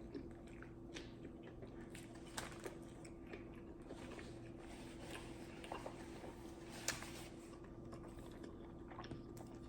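Faint chewing of a McDonald's spicy snack wrap, with scattered small clicks and crunches, the sharpest about two and a half and seven seconds in, over a steady low hum.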